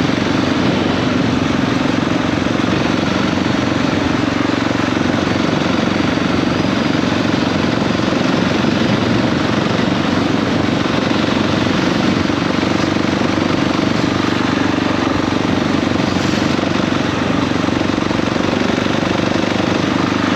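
KTM 690 SMC R supermoto's single-cylinder engine running steadily at an even pace, with no marked revving or gear changes.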